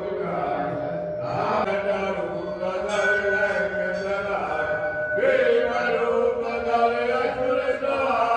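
Devotional mantra chanting set to music, the voice holding long notes that shift about a second in and again about five seconds in.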